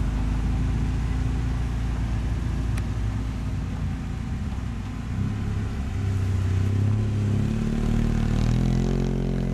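Engine of a lifted, modified Fiat 500 off-roader working at low revs as it crawls over rough dirt, then revved up about halfway through, its pitch climbing and falling under load as it climbs a mound.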